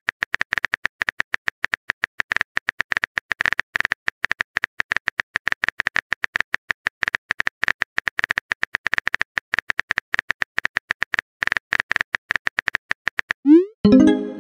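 Virtual keyboard key clicks from a phone texting app, rapid and even at about eight to ten a second with two short pauses, as a message is typed out letter by letter. Near the end a quick rising swoop and a short tone sound as the message is sent.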